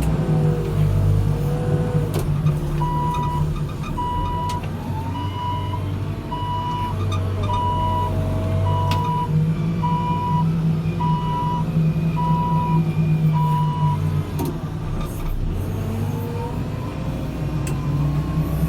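New Holland backhoe loader's diesel engine running steadily under work. A reversing alarm beeps about once a second from about three seconds in until about fourteen seconds in.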